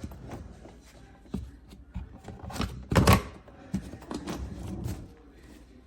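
Irregular clicks, knocks and rustling of objects being handled in a small room, with the loudest knock about three seconds in.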